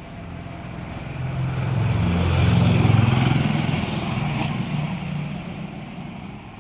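A motor vehicle passing by, its engine growing louder to a peak midway and then fading away. A short click sounds about four and a half seconds in.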